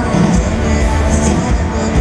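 Live country band music played loud over a concert PA, heard from within the crowd.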